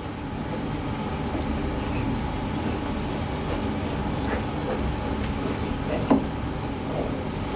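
A spatula stirring thick cornflour halwa in ghee round a pan without pause: the paste squelches and the spatula scrapes the pan, over a steady low rumble. One sharp knock of the spatula on the pan about six seconds in.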